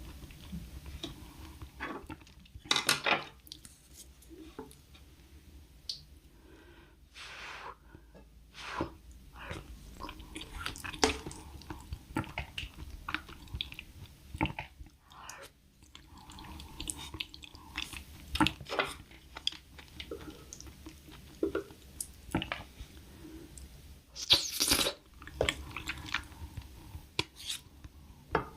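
Close-miked chewing and mouth sounds of a person eating, with irregular crunches and clicks; the loudest bursts come about three seconds in and a few seconds before the end.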